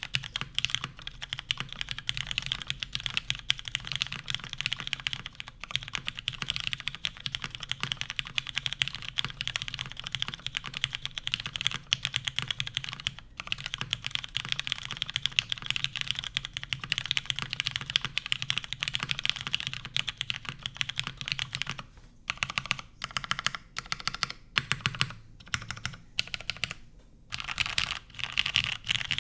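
Steady fast typing on a custom mechanical keyboard with lubed, filmed Cherry MX Black linear switches in a top-mounted aluminum plate, under GMK keycaps. In the last third the typing breaks into slower, separate keystrokes for a few seconds, then picks up to fast typing again near the end.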